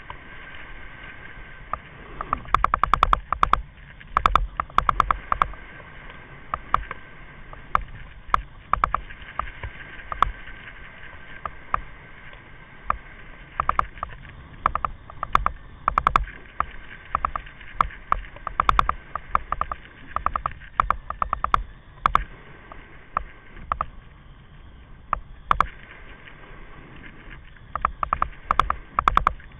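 Kite buggy rolling fast over hard sand: a steady rush of wind and tyres, broken every second or two by clusters of rapid rattling clicks and low thumps as the buggy jolts over bumps.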